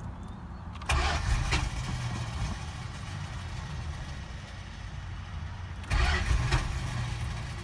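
Chrysler 318 V8 running unevenly just after a hard restart, with the throttle blipped twice, about a second in and again near six seconds, each rise easing back down. The engine stalls and is hard to restart, a problem the owner says always comes when the tank holds this much fuel.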